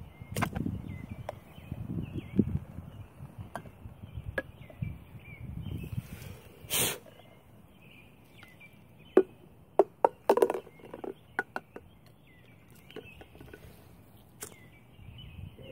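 Handling of a small plastic bottle: rustling and crinkling, a short loud burst of noise about seven seconds in, then a run of sharp clicks and cracks a few seconds later. Faint repeated chirping goes on underneath throughout.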